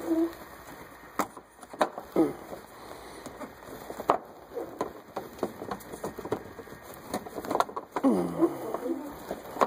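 Hands working a plastic lower shroud panel and its clips into place: scattered sharp plastic clicks and snaps, with rubbing and scraping of plastic between them. The loudest clicks come about one, two and four seconds in, and again near the end.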